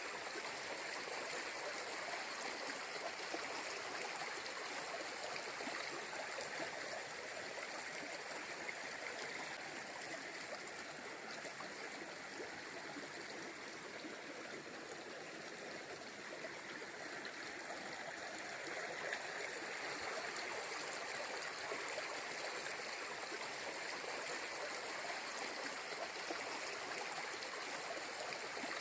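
A forest river flowing over rocks: a steady rush of running water with a constant gurgle.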